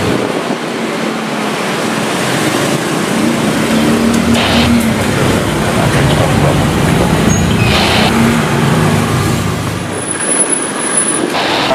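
Road traffic: a steady roar of cars and trucks passing, with a few vehicles swelling louder about four and a half and eight seconds in.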